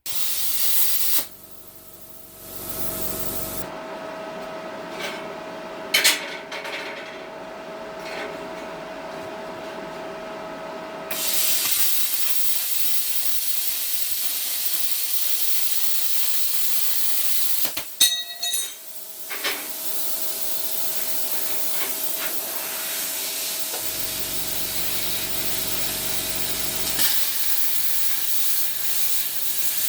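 Plasma cutter cutting metal: a steady loud hiss of air and arc, at times with a thin steady whine in it, changing abruptly several times, with a few sharp clicks about six seconds in and a burst of clicks past the middle.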